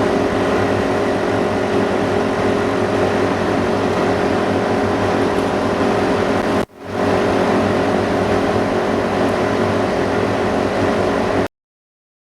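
Steady electric machine hum with a constant drone. The sound drops out for a moment about two-thirds of the way through, then cuts off abruptly into silence near the end.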